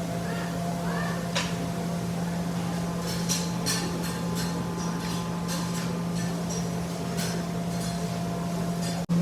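Restaurant room tone: a steady low hum with scattered clinks and clatter of dishware and faint distant voices.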